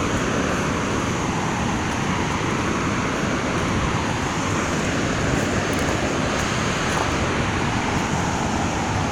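Heavy water rushing steadily out of dam flood gates during flood release, a loud, even noise with no breaks.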